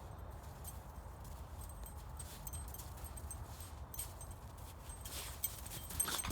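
Footsteps crunching in snow, a series of soft irregular steps, growing more distinct near the end.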